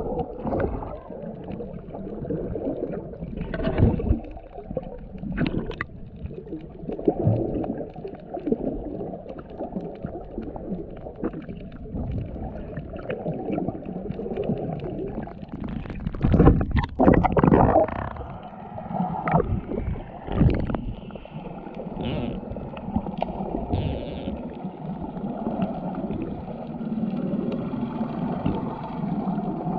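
Muffled gurgling and sloshing of water around a camera held underwater while snorkelling. It swells and fades irregularly, with a few louder surges, the biggest about halfway through.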